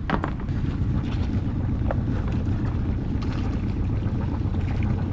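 A boat engine running at idle, a steady low hum, with wind buffeting the microphone. A few light knocks come near the start and about two seconds in.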